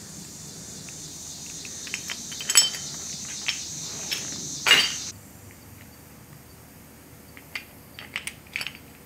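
Metal parts of a disassembled Stihl leaf blower two-stroke engine clinking and knocking as they are handled, with a few sharp clicks (the loudest about halfway through) and lighter ticks near the end. A steady high hiss runs through the first half and cuts off suddenly.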